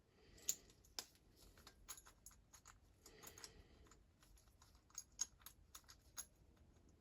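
Faint, scattered clicks and taps of small diecast model parts being handled on a workbench, with a few sharper clicks about half a second and a second in and several more around five to six seconds.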